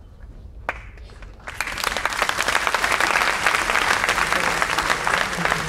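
Audience applauding: a lone clap a little under a second in, then the audience breaks into loud applause about a second and a half in.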